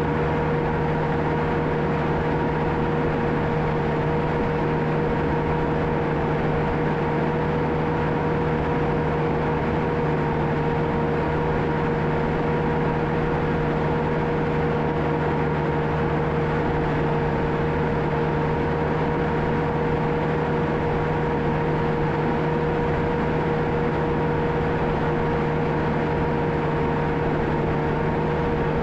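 John Deere 650K crawler dozer running steadily under work: a constant diesel engine drone with a steady high whine over it.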